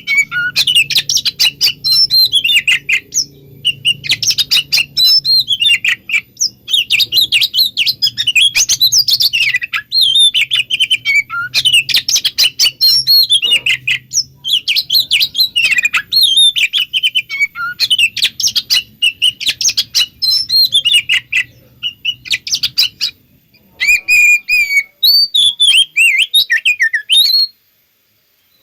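Oriental magpie-robin (kacer) singing rapid, varied chattering and whistled phrases with hardly a pause: the excited 'konslet' song that bird keepers play to provoke other magpie-robins into answering. The song breaks off briefly about two-thirds in and again just before the end.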